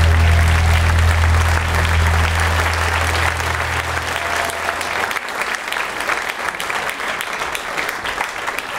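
Audience applauding throughout, while the low note of the music's final chord rings on and fades out about five seconds in.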